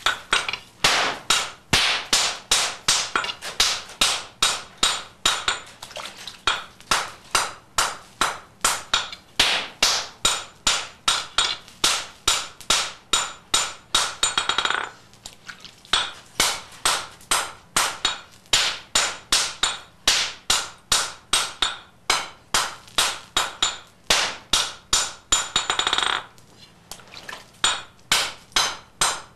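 Hand hammer striking a red-hot steel sword blade on an anvil at about three blows a second, each blow ringing, as the smith forges the katana blade into shape. The blows pause briefly twice.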